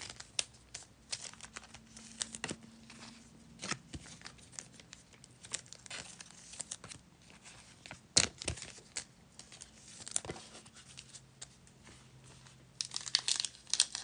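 Scattered light rustles and clicks of cards and packaging being handled, then a dense crinkling as the plastic wrapper of a Panini football card pack is torn open near the end.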